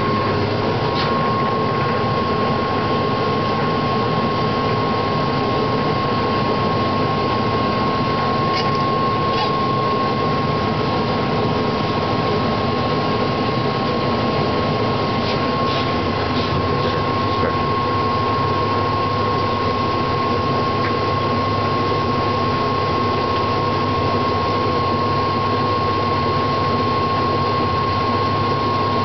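1941 Hendey 9-inch toolmaker's lathe running in back gear at about 150 rpm under power feed, its high-speed-steel tool cutting a 38-degree bevel on a 3-inch steel gear blank: a steady mechanical whir with a constant high whine and a few faint ticks.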